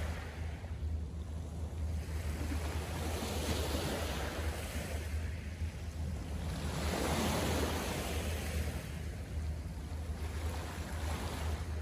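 Small Lake Michigan waves washing onto the shore, a swell of surf every three to four seconds over a steady low rumble.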